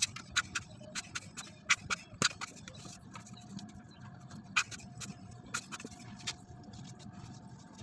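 Irregular sharp clicks and knocks from hand work on a Honda Vario 125 scooter's CVT transmission, as parts around the loose drive belt and front pulley shaft are handled.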